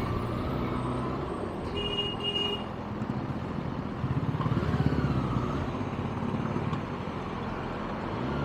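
Kawasaki ZX-6R inline-four engine running at low speed in slow traffic, picking up and easing off again around the middle, over the steady hum of surrounding cars and trucks. A short high beep from nearby traffic comes about two seconds in.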